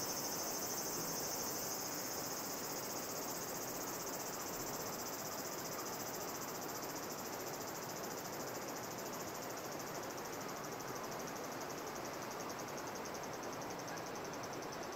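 Steady high-pitched chorus of insects, a rapid pulsing trill that carries on without a break.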